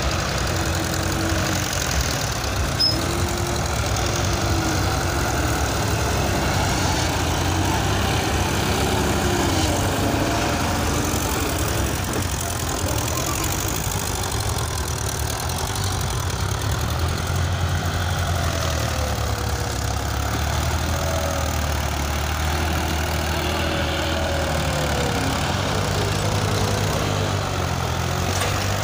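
Diesel farm tractor engines running under heavy load as they drag implements through sand: a continuous low drone whose pitch wavers up and down.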